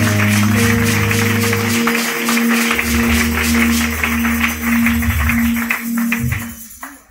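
Church band music: sustained keyboard chords over a bass line, with a steady rhythm of high percussion strokes, fading out near the end.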